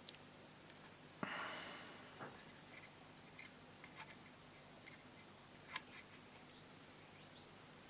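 Near silence with faint handling sounds: a short rustle just over a second in, then a few faint light clicks.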